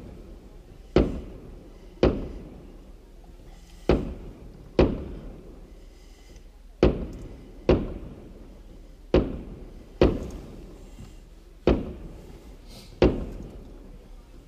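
Aerial fireworks bursting overhead: about ten sharp bangs at irregular intervals of roughly one to two seconds, each trailing off in an echo.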